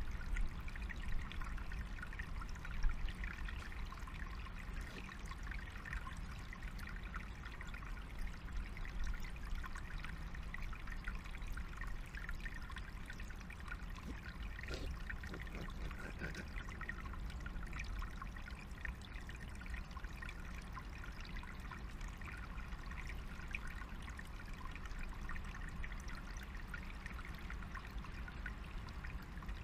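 Small forest stream trickling steadily over stones, with a low rumble beneath. A few faint clicks come about halfway through.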